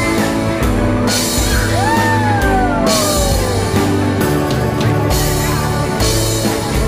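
Background rock music with guitar and drums, with a long falling note about two seconds in.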